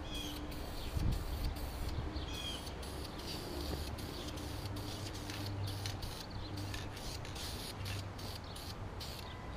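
Aerosol spray can of wrinkle paint hissing in repeated sprays with brief breaks between them, as paint is laid around the edges of a mower deck. A bird chirps twice early on.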